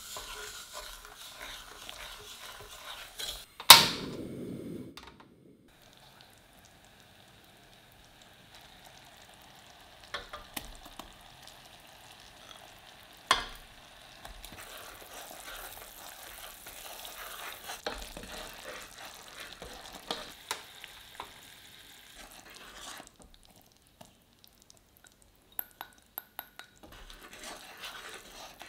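A wooden spoon stirring and scraping honey and sugar in a stainless steel saucepan, with one sharp knock a few seconds in that is the loudest sound. Later the heated honey syrup bubbles and sizzles as cubes of butter drop in, and near the end the spoon stirs again.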